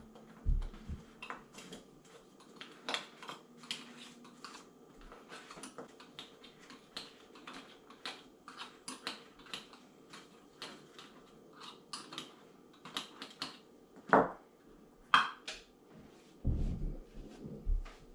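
Small screwdriver tapping and scraping against thin metal cans as insulation is packed into the gap around the inner can of a homemade Fancy Feast alcohol stove: irregular light clicks, with two sharper clicks and a few dull thumps near the end.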